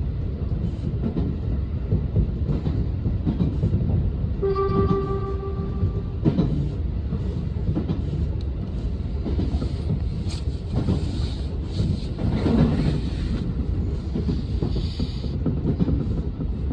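Electric commuter train running with a steady rumble and rail clatter; about four and a half seconds in, the train's horn sounds once for about a second and a half, warning in the snow.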